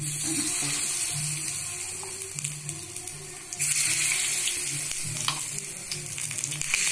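Appam batter sizzling as it is ladled into hot ghee in the cups of a kuzhi paniyaram pan. The sizzle turns suddenly louder about three and a half seconds in, as another ladleful goes in, and again near the end.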